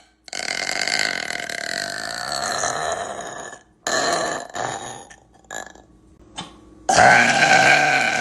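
A woman burping: one long drawn-out burp of about three seconds, a shorter one after a brief gap, two tiny ones, then another long, loud burp starting near the end.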